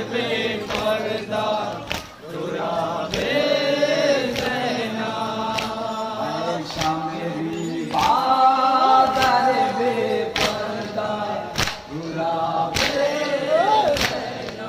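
Crowd of men chanting a nauha (mourning lament) together in long sung phrases, with a sharp slap about once a second: the beat of matam, hands striking chests in time with the chant.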